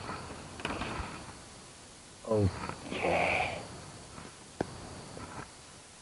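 A man's short grunt, falling in pitch, then a breathy sniff, with a single faint click a little later.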